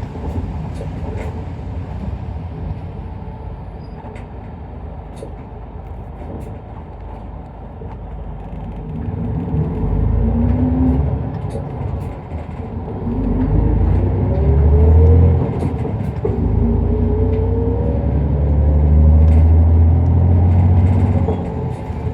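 Isuzu Erga Mio diesel city bus heard from inside the cabin: the engine and drivetrain run at a steady low rumble, then from about nine seconds in the bus accelerates, with a rising whine that climbs and drops several times as it works up through the gears. Light rattles tick now and then over the engine.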